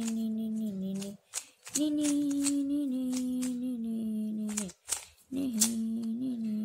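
A boy humming a slow tune in long held notes, in three phrases with short breaks between them. Light plastic clicks come from the 3x3 cube's layers as they are turned.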